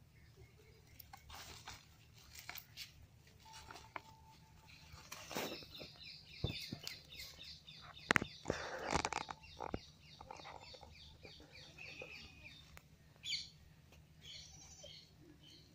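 Faint outdoor sounds: birds chirping in quick repeated notes through the middle, among scattered clicks and a few short louder sounds.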